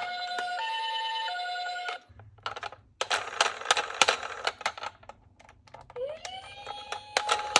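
Toy ambulance minicar sirens. For about the first two seconds a two-tone 'pee-po' siren alternates between two pitches over a quick clatter of clicks. Then scattered clicks and rattles follow as the die-cast minicars run, and about six seconds in another siren rises in pitch and holds steady.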